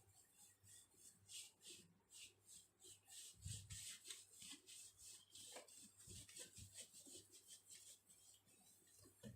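Faint, quick repeated wiping strokes scrubbing the inside of a microwave oven, a few strokes a second, with a few dull knocks, the loudest about three and a half seconds in.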